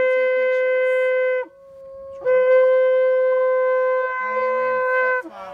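Shofar, a ram's-horn trumpet, blown in two long, steady held blasts. The first breaks off about a second and a half in, and a fainter, higher tone carries on through the short gap. The second blast starts just after two seconds and is held until near the end.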